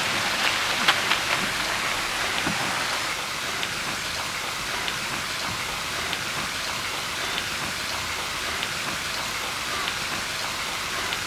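Steady hiss of splashing falling water, such as a garden fountain or water wall, with a few sharp clicks about a second in.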